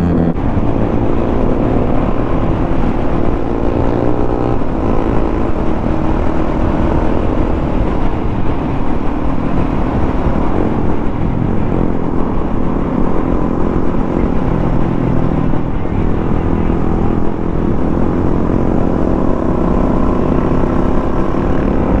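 Suzuki DRZ400 supermoto's single-cylinder engine running steadily at road speed, with heavy wind rush on the microphone.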